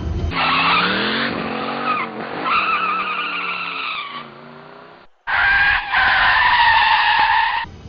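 A vehicle's tyres squealing over an engine whose pitch rises and falls, in two stretches broken by a brief gap about five seconds in.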